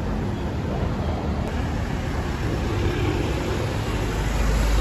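A slow line of cars, SUVs and an ambulance driving past on a street: engine and tyre noise, with a deeper rumble that swells near the end as a vehicle passes close.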